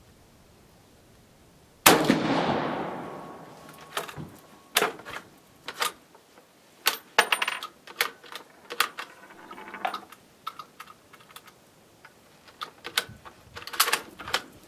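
A single shot from a 6.5mm Carcano M38 bolt-action short rifle about two seconds in, its report dying away over about a second. This is followed by a long string of sharp metallic clicks and clacks as the bolt is worked.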